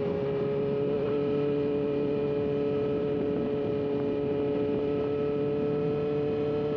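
Vehicle engine running at a steady speed, its pitch held level, over a hiss of road and wind noise.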